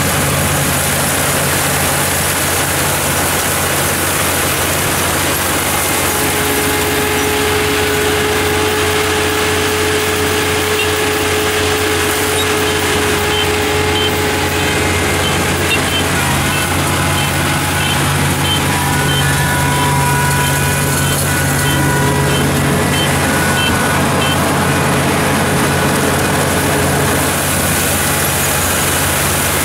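Kubota ER-447 rice combine harvester running steadily under load: diesel engine and cutting and threshing machinery working through the standing rice at close range. Through the middle a faint, regular high pip repeats about once or twice a second.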